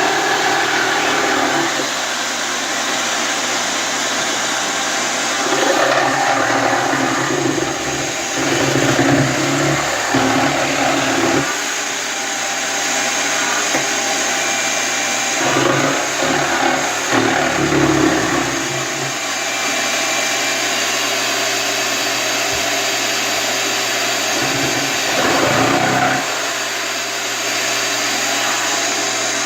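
A steady motor whir, with three louder, lower-pitched stretches along the way.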